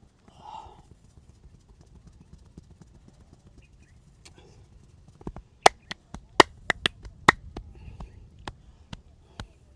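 Hands working on a head and back in a massage: a quick run of about eight loud, sharp smacks and cracks within two seconds about halfway through, with softer pats and taps around them.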